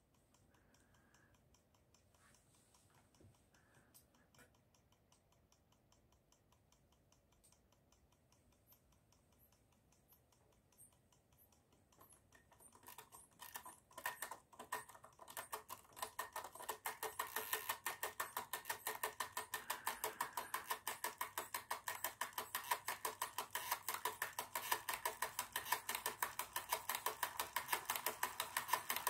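Hasler RT9 railway tachograph's mechanism clicking, faint and sparse at first, then from about halfway growing louder into a fast, even run of ticks as the indicated speed rises.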